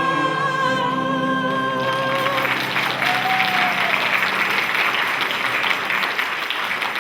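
Singers holding the last note of a song, which ends about two and a half seconds in and gives way to an audience applauding.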